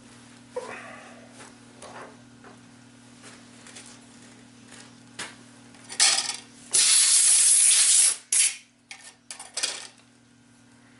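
Light metal clicks and clinks as a steel workpiece is loosened from a milling-machine vise and handled, over a steady low hum. About six seconds in comes a loud blast of air hissing for just over a second, after a shorter one, followed by a few more metal clinks.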